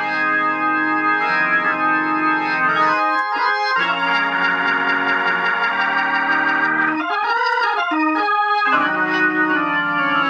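Hammond organ playing held chords through its freshly recapped amplifier, with a quick run of notes about seven seconds in; this is a sound check after cheap replacement capacitors were swapped out.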